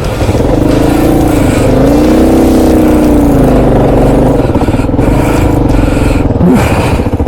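Kawasaki KLR650's single-cylinder four-stroke engine pulling under load in loose sand, its pitch rising and falling with the throttle.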